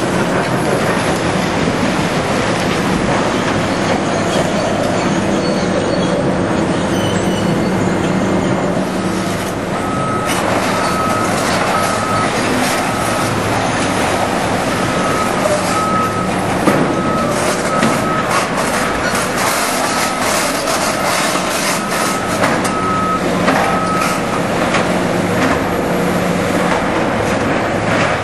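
Heavy demolition machinery's diesel engines running steadily. From about ten seconds in, a reversing alarm beeps repeatedly, and concrete debris clatters and cracks over the engine noise.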